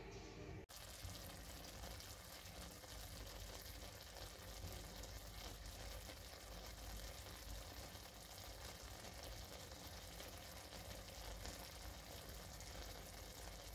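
Canned stewed beef and chopped onion faintly sizzling as they fry in a frying pan, in the fat from the tin.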